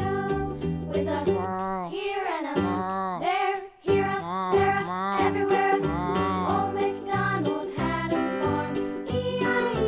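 Background music in a children's style: a bright tune with a steady beat and sung or melodic gliding phrases, with a brief pause just under four seconds in.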